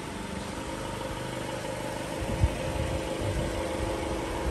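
2017 Ram ProMaster City's 2.4-litre Tigershark MultiAir four-cylinder engine idling as the van creeps forward, with a short thump about halfway through.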